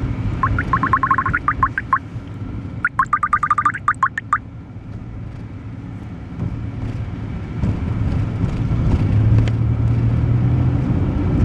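Truck engine and road noise, steady and low, growing louder about eight seconds in. Two quick bursts of rapid, high, rising chirps sound over it within the first few seconds.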